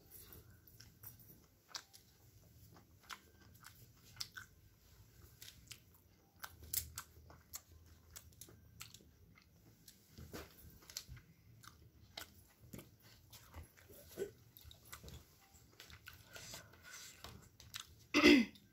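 Close-up eating sounds: a person chewing and biting steamed chicken momos, with scattered small mouth clicks and wet smacks. Just before the end comes a short, loud voiced sound from the eater.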